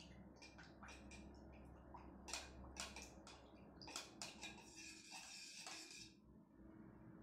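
Near silence: faint steady background hum with scattered soft clicks and a brief soft hiss near the end.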